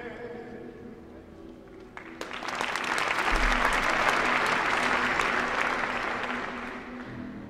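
Audience applauding. The clapping breaks out suddenly about two seconds in, swells, then fades away near the end.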